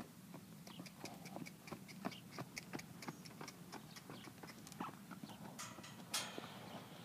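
Hoofbeats of a mustang moving around a dirt round pen: a faint, irregular run of light clicks and thuds, several a second, with a short rushing noise about six seconds in.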